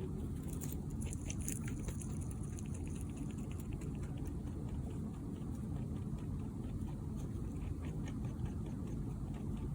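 Faint, rapid, irregular clicking from a Mini Rex rabbit, over a steady low rumble.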